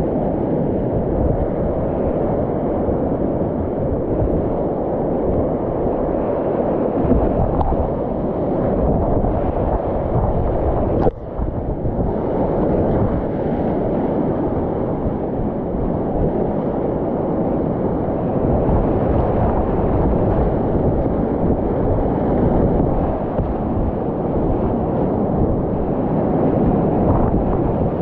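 Whitewater rapids rushing and splashing around a kayak in a steady, dull roar. About eleven seconds in there is a single sharp click.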